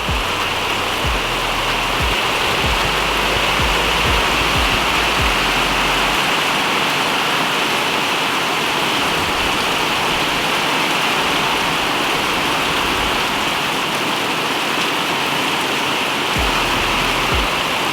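Heavy rain pouring down steadily in a thunderstorm, an even hiss with no let-up.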